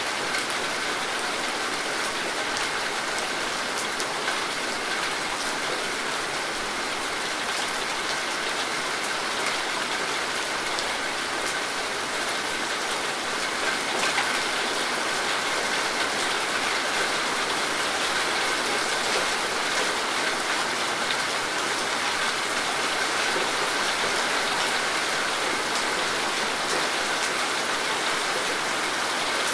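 Steady rain falling: an even hiss of many drops, with single drop ticks scattered through it.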